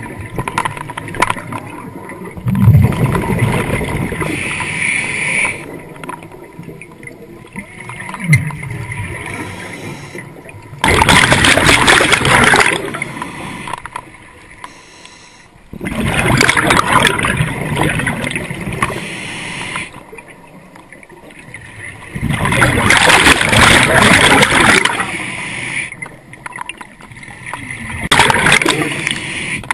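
Scuba diver breathing underwater through a regulator. Exhaled bubbles rush out in loud bursts every five or six seconds, with quieter inhalations between them.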